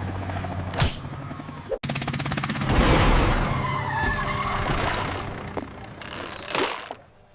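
A toy helicopter's rotor and motor running with a rapid chopping buzz. It grows louder a few seconds in, then fades away near the end.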